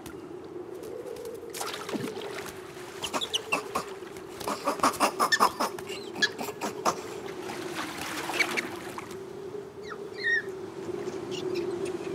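Animated-film sound effects: a steady low drone under a flurry of sharp clicks and knocks, quickest in the middle, with a few short high squeaks.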